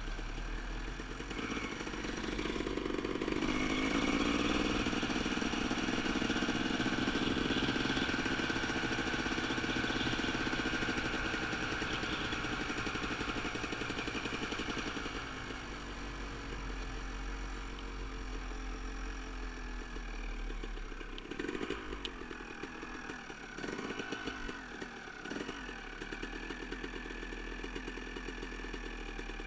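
Motorcycle engine running as the bike is ridden, steady and loud through the first half, then easing off and quieter in the second half as it slows. A few knocks come near the end.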